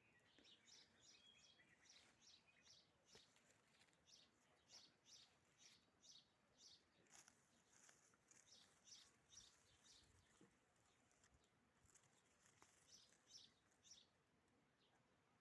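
Faint songbird chirping: a quick series of short high chirps, about three a second, that stops near the end.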